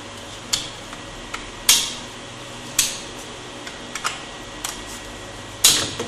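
Sharp plastic clicks and knocks from a laptop's battery release latches being slid and the battery pack being worked out of its bay. There are about six separate clicks, with a loud one about a second and a half in and the loudest near the end.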